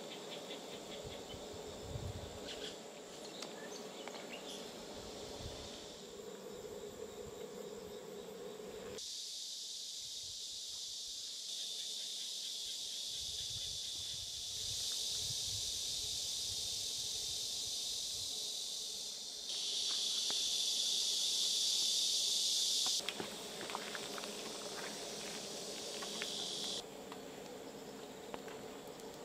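Food sizzling as it cooks over a camp fire, in several cut-together takes that each jump to a different loudness, the loudest a little past two-thirds of the way through. Insects keep up a steady high chirping underneath.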